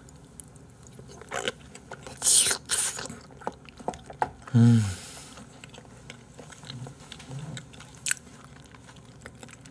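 A man biting and chewing a mouthful of salmon close to the microphone, with wet mouth clicks and smacks and a loud noisy breath about two and a half seconds in. Around four and a half seconds in he gives a short hummed "mm" that falls in pitch.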